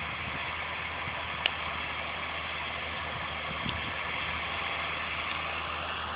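Tractor engine running steadily while ploughing, with a sharp click about a second and a half in.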